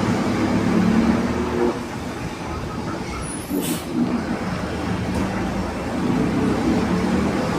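Mercedes-Benz LO 916 city bus running, its OM924 LA four-cylinder diesel and a growling differential giving a steady pitched drone. A brief hiss sounds about three and a half seconds in.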